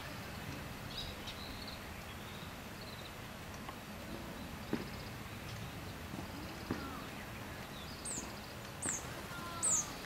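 Small birds chirping against a steady outdoor hiss: a few short high trills scattered through, then three short, high, falling chirps about a second apart near the end.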